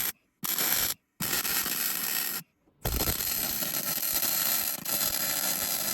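MIG welder crackling and hissing in short bursts, then a longer steady run, filling drilled-out spot weld holes in car body sheet metal. Three brief bursts in the first two and a half seconds, then one continuous weld from about three seconds in.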